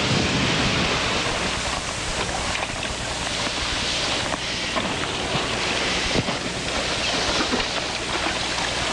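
A small fishing boat under way: rushing water and wind noise on the microphone over a steady low engine hum, with a single sharp tick about six seconds in.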